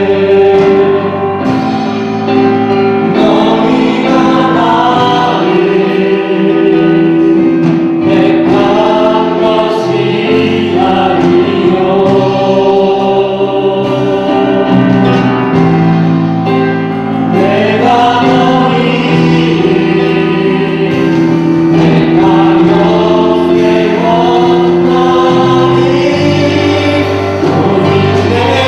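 Church choir singing sacred music, the voices holding long chords that move together.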